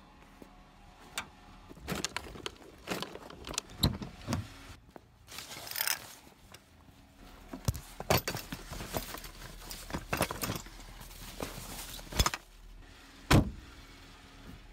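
Clicks, knocks and rattles of a Jeep's tailgate latch, doors and the gear inside being handled, with a loud thump about 13 seconds in.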